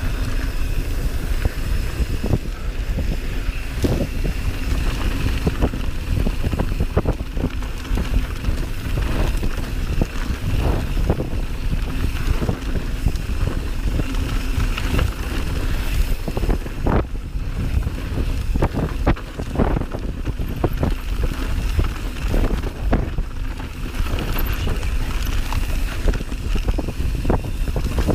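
Mountain bike ridden over a rough dirt singletrack: wind rushing over the microphone and tyre rumble, with frequent sharp knocks and rattles as the bike hits bumps.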